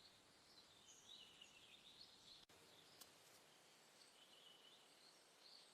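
Near silence: a faint outdoor ambience bed of light hiss with soft, distant bird chirps.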